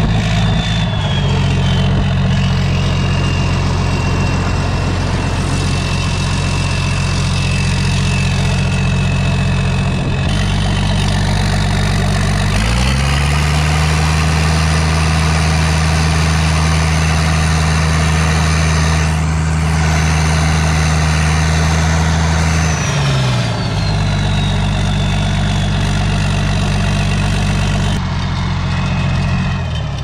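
International Harvester 1420 combine's diesel engine, with an aftermarket turbo and straight-piped exhaust, idling. A little under halfway through it is revved up, held at a higher speed for about ten seconds, then dropped back to idle. A thin turbo whistle rises and falls with the engine speed.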